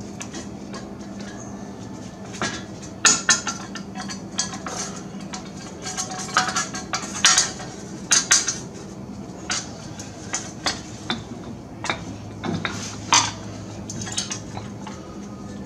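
Irregular sharp metallic clinks and knocks of steel parts and hand tools being handled while a new wheel hub assembly is fitted in place, over a faint steady hum.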